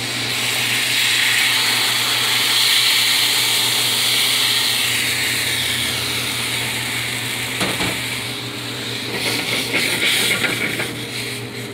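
White wine sizzling as it hits a hot sauté pan of garlic, a loud hiss at first that eases into a crackling, bubbling simmer. A steady low hum runs underneath.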